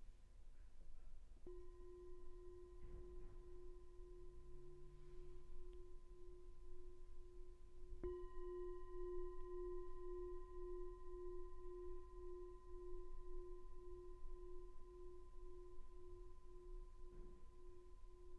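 A metal singing bowl resting on an open hand is struck twice with a wooden striker, about a second and a half in and again more strongly about eight seconds in. Each strike rings on as a long, slowly pulsing tone with fainter higher overtones, the bell that opens a guided meditation.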